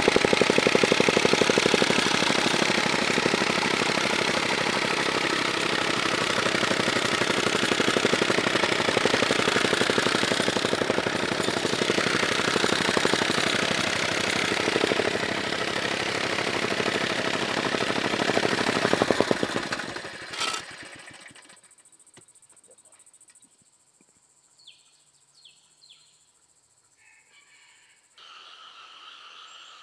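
Engine-driven soil compactor running with a fast, steady pounding, cut off sharply about two-thirds of the way through. After it stops there are a few faint clicks, and near the end a steady background of insects comes in.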